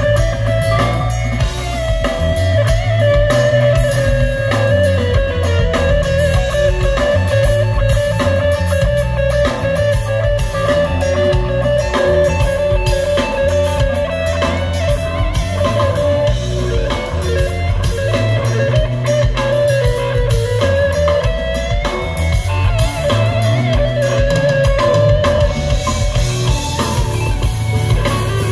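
Live rock band playing an instrumental passage: electric guitar holding a long, bending lead line over bass guitar and drum kit.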